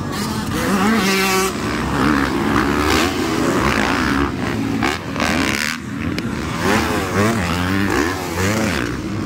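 Several motocross dirt bikes racing, their engines revving up and down again and again as they run the track and take the jumps.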